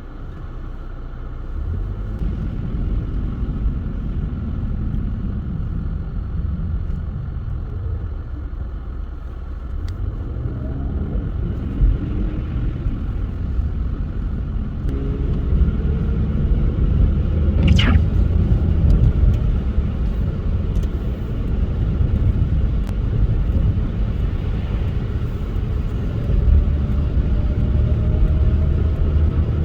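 Car driving on a snowy road: a steady low rumble of tyres and engine, with the engine tone rising in pitch as the car speeds up, twice. A brief sharp sweep falling in pitch stands out about eighteen seconds in.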